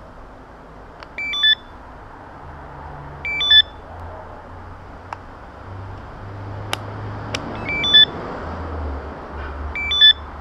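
Walkera Devo 7E radio transmitter beeping: a short electronic chirp of a few stepped notes, repeated four times a few seconds apart. A few sharp clicks fall in between, over a steady low background rumble.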